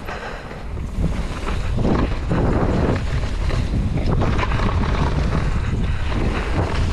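Wind rushing over a helmet-mounted action camera's microphone during a mountain bike descent on a dirt trail, with a low rumble of tyres and frequent short knocks and rattles from the bike over bumps. It gets louder about two seconds in.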